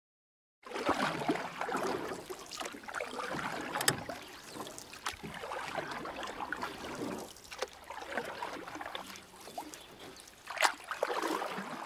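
Water splashing and trickling, in uneven swells with scattered sharp clicks.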